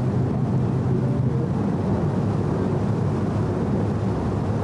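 Steady low engine rumble of a river sightseeing boat underway, with an even hiss over it.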